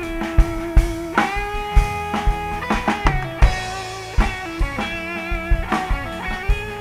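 A live rock band plays an instrumental break: an electric guitar plays a lead line of long held notes with wavering pitch over a steady drum-kit beat.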